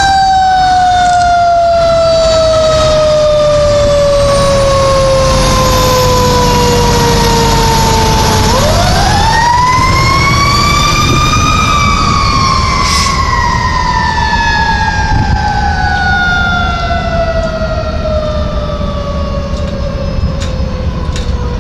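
Fire truck siren wailing in one long slow cycle. Its pitch sinks steadily for about eight seconds, climbs back up over about three seconds, then sinks slowly again, and it grows a little fainter as the truck pulls away near the end.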